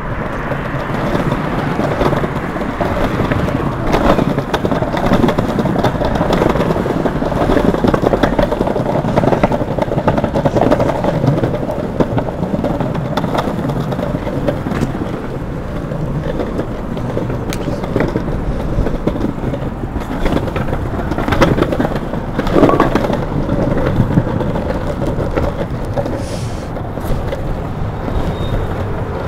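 Longboard wheels rolling over paving slabs, a steady rumble with scattered clicks as the wheels cross the joints while the rider pushes along.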